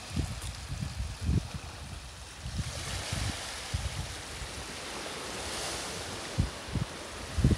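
Small sea waves washing over rocks and shingle, a soft hiss that grows louder a few seconds in. Wind buffets the microphone in low, uneven rumbles throughout.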